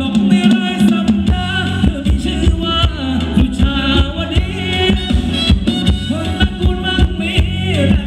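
Live Thai ramwong dance band music, loud, with a heavy thumping bass-drum beat under a wavering lead melody.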